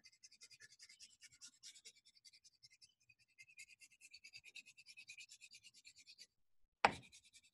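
Wax crayon scratching on paper in quick back-and-forth shading strokes, faint, pausing briefly and starting again. One sharp knock near the end is louder than anything else.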